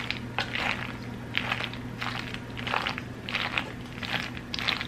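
A spoon stirring a deviled egg pasta salad in a bowl, a wet squishing scrape with each stroke, about two strokes a second.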